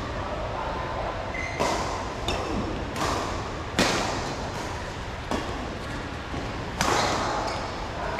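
Badminton rally: rackets striking the shuttlecock about six times, sharp hits roughly every second or so, echoing in a large hall.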